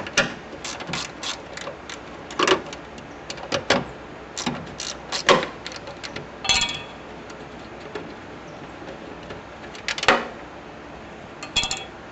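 Socket ratchet clicking and metal tools clinking while 10 mm head bolts are loosened: irregular sharp clicks, with a brief rapid ratcheting rattle about six and a half seconds in.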